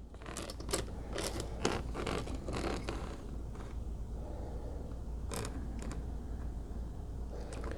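Faint scraping and rustling of wires and a soldering iron being handled while a joint is soldered, with light clicks, mostly in the first three seconds and again about five seconds in, over a low steady hum.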